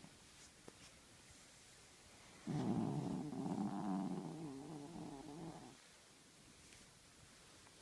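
Chihuahua snoring: one long snore of about three seconds, starting abruptly about two and a half seconds in, with a wavering, buzzing pitch.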